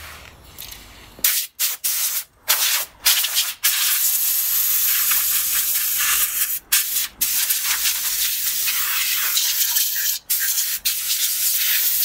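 Compressed-air blow gun hissing as it blows dust off a brake caliper: a few short blasts, then a long steady blast broken by a few brief pauses.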